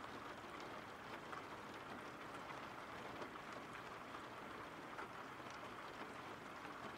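Soft, steady rain falling, an even hiss with scattered light drop ticks.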